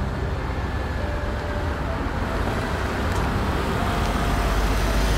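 A Nissan Pathfinder SUV approaching on the road, its engine and tyre noise growing steadily louder as it nears.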